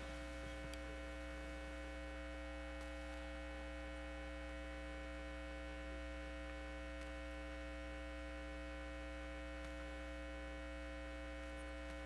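Steady electrical mains hum on the sound system: a low drone with several fixed higher tones above it.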